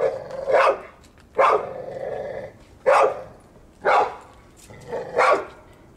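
Blue pit bull-type dog barking about six times in loud, separate barks at a trainer's bite sleeve, under control during bite-work training.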